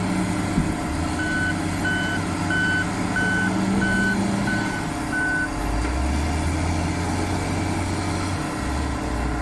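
Wheel loader's reverse alarm beeping seven times, about one and a half beeps a second, over its steadily running diesel engine. In the second half the alarm stops and the engine note deepens for about three seconds as the bucket is raised.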